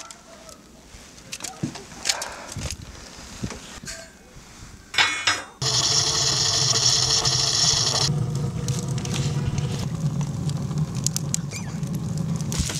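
Pieces of birch wood knocking and clattering as they are loaded into a clay tandoor. About five and a half seconds in, a handheld butane gas torch starts hissing loudly as it lights the wood for about two seconds. The newly lit wood fire then burns with a low rumble and scattered crackles.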